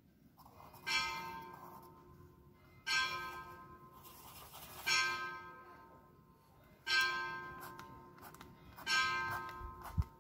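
A single bell tolling, struck five times about every two seconds, each stroke ringing out and fading before the next. A short dull thump comes near the end.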